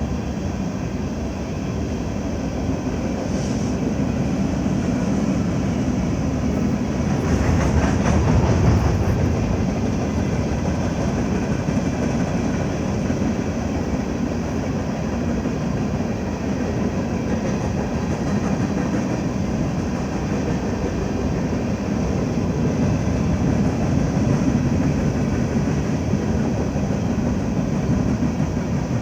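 BNSF coal train rolling by: a steady rumble of wheels on rail with some clickety-clack, getting louder for a couple of seconds about a quarter of the way in.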